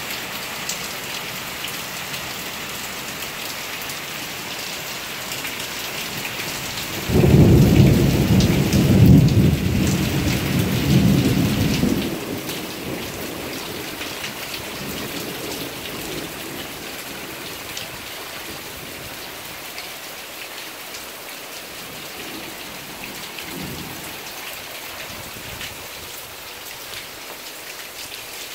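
Steady rain falling, with a sudden loud rumble of thunder about seven seconds in that lasts several seconds before dying away.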